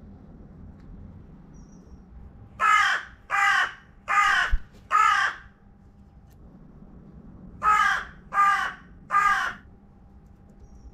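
Carrion crow cawing: a run of four harsh caws, then after a short pause three more.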